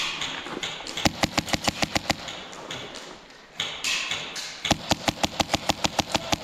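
MTW Wolverine HPA airsoft rifle firing two fast strings of sharp shots, about seven a second. The first begins about a second in and lasts about two seconds; the second comes near the end.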